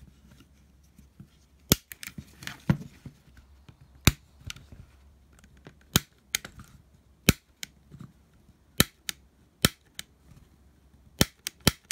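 Piezo igniter of a small butane micro torch clicked over and over, a dozen or so sharp snaps at irregular intervals. It is being fired to test the spark across the igniter wire's freshly reset gap at the nozzle, which still looks weak and may miss now and then.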